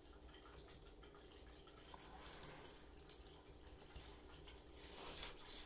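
Small kindling fire of planer shavings and small pieces of wood burning in a wood stove, giving faint, irregular crackles and pops.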